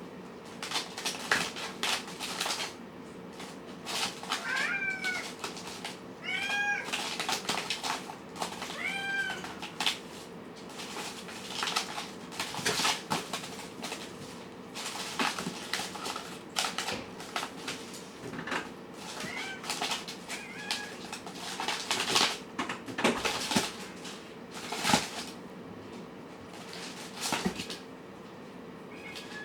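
Kittens meowing: short, high calls that rise and fall, three clear ones about 5, 7 and 9 seconds in and fainter ones around 20 seconds. Many short clicks and knocks run between them, over a faint steady hum.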